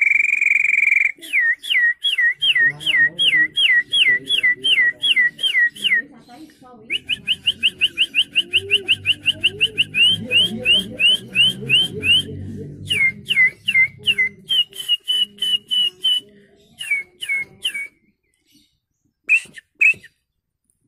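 A man whistling bird-call imitations by mouth. First a held whistle, then a run of quick falling notes about four a second, a short break, and a faster series of rising chirps. Scattered trills and short notes follow, thinning out near the end.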